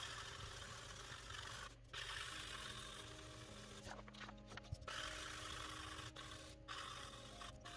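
Soft 4B graphite pencil hatching back and forth over paper, a faint steady scratchy rubbing that breaks off briefly a few times. The back of a printout is being shaded for a graphite transfer.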